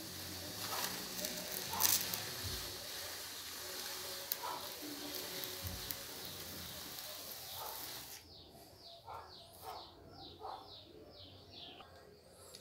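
Wooden profile template scraping around wet cement on a ribbed vase form: a steady gritty scraping hiss with a few clicks, stopping about eight seconds in. Faint short chirps follow.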